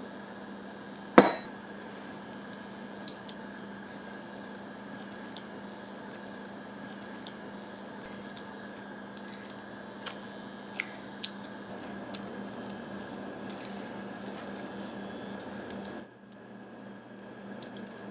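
Sieved potato being stirred with hot cream and melted butter into a purée in a pot on the stove, with a steady wet squishing. A sharp clink comes about a second in and a few light clicks follow later, over a steady low hum.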